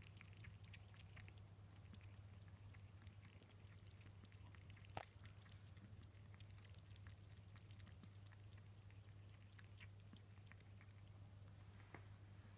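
A Ragamuffin kitten lapping water from a bowl: faint, quick little licks and drips, with one sharper click about five seconds in, over a steady low hum.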